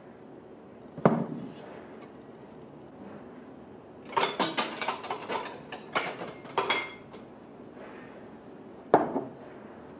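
Kitchen items being set down and handled on a wooden countertop: a single thud about a second in, a quick run of clatters and clinks in the middle, and another thud near the end.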